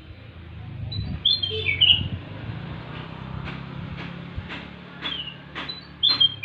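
Kutilang emas, a bulbul, singing: a quick burst of bright whistled notes about a second in, then a string of short sharp chip notes, and the whistled phrase starting again near the end, over a low steady hum.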